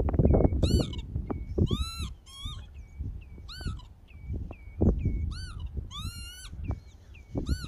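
Northern lapwings calling repeatedly: about seven wheezy, arched calls that rise and then fall, with short lower notes between them. Under the calls there is a low rumble of wind and handling noise on the microphone, loudest at the start.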